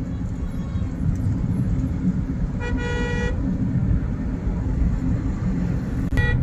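Steady road and engine rumble of a moving car, with a vehicle horn sounding once for about half a second around the middle and a brief toot near the end.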